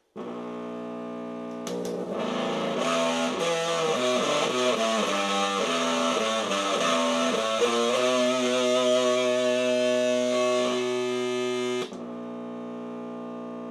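Electric guitar played through the Rebel Robot, a homemade Junkbox amp built from an old cassette player, fed by a Wall of Sound pedal. A steady sustained tone starts it off, then from about two seconds in louder changing notes are played for about ten seconds, falling back to the steady tone near the end.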